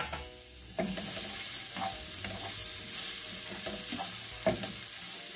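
Sliced mushrooms and bean sprouts sizzling in margarine in a frying pan, stirred with a wooden spatula. The sizzle grows louder about a second in as the stirring starts, with a few knocks of the spatula against the pan.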